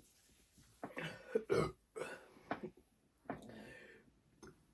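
A person burping several times in quick succession, short separate burps spread over a few seconds.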